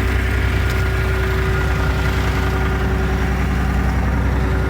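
Tracked skid steer's engine running steadily, an even drone with a constant hum over it.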